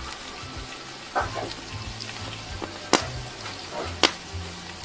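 Onions frying in oil in a pot, a steady sizzle, with two sharp knocks about three and four seconds in.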